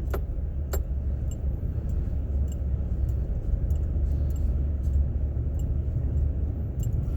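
Pickup truck driving through deep snow in four-wheel drive, heard from inside the cab: a steady low rumble with scattered light clicks and rattles, two sharper ones near the start.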